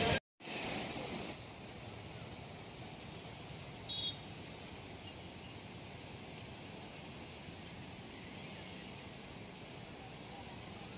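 Steady rushing of fast floodwater in a channel in spate, pouring over rocks and past a pipe laid across the stream. A brief high chirp sounds about four seconds in.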